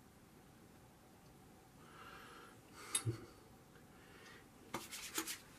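Quiet handling of a small aftershave sample vial: a soft rustle, then two sharp clicks about three seconds in and a quick run of small clicks and taps near the end as the vial is opened and tipped into the hand.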